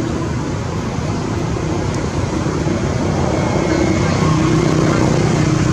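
Steady hum and rumble of a motor vehicle running, getting a little louder through the stretch.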